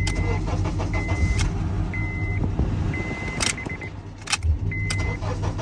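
Honda Accord engine running steadily, with the dashboard warning chime beeping about once a second and a few sharp clicks. There is no sound from the starter relay now that the ignition switch has been replaced.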